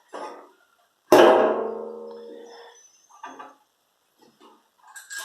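A single strummed guitar chord about a second in, ringing and dying away over a couple of seconds, followed by a few light clicks and knocks.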